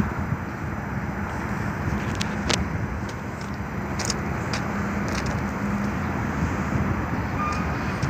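Steady road-traffic noise: vehicle engines running with a low, even hum, and a few faint clicks.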